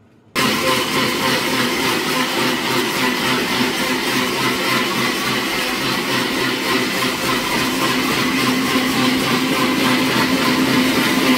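Electric mixer grinder switched on about half a second in, its motor then running steadily at full speed, blending ice with milk and ice cream in a stainless steel jar.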